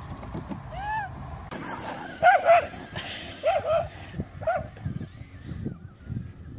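A dog yipping in short, high, arching barks, several in quick succession, the loudest about two seconds in. A small engine runs faintly underneath.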